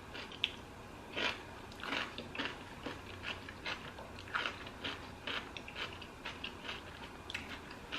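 A person chewing crunchy food close to the microphone: soft, irregular crunches and mouth sounds, about two a second.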